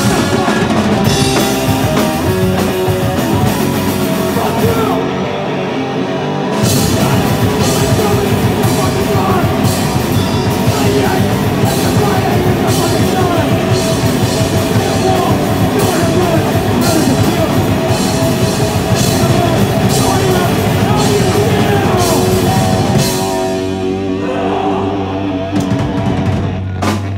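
Live punk band playing loud, with distorted guitar, bass and drums. The drums and cymbals stop briefly about five seconds in, then the band kicks back in. Near the end the drums drop away, leaving held, ringing guitar and bass notes as the set winds down.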